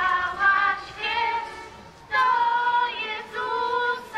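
A group of voices, women and children among them, singing a Christmas carol in long held notes, with a short break about two seconds in.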